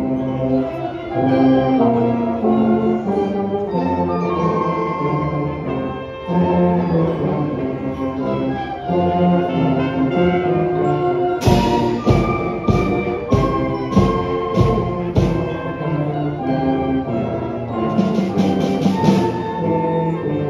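Brass-led band music playing steadily, with a drum beat about twice a second coming in about halfway through.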